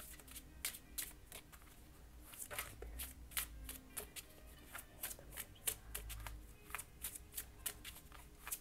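A deck of mudra cards being shuffled by hand: quick, irregular flicks and slaps of the cards, a few a second.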